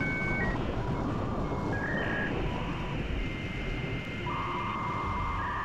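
Electronic outro music: held synth tones that change in steps over a low rumbling noise.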